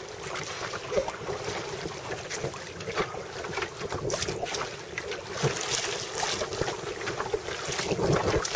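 Wind buffeting the microphone over choppy ocean, with water splashing irregularly around a rowed wooden lifeguard surf boat.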